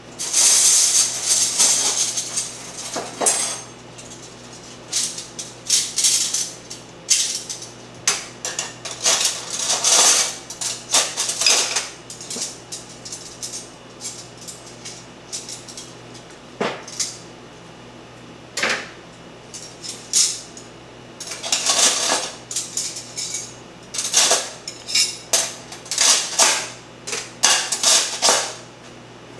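Dishes and metal utensils clattering in irregular bursts of clinks and knocks, with quieter gaps between.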